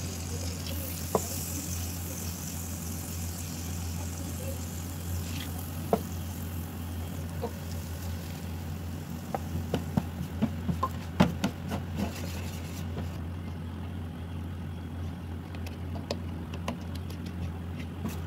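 Butter sizzling softly in a non-stick frying pan at first, then a spatula clicking and scraping against the pan as flour is stirred into the butter to make a roux. A steady low hum runs underneath.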